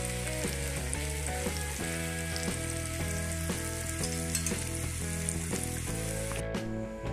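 Stuffed bitter gourds frying in oil in a cast iron pan: a steady sizzle that cuts off suddenly about six and a half seconds in. Background music with a stepping melody plays throughout.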